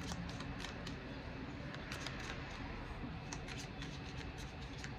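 A deck of tarot cards being shuffled by hand: irregular soft flicks and snaps of card edges, over a steady low hum.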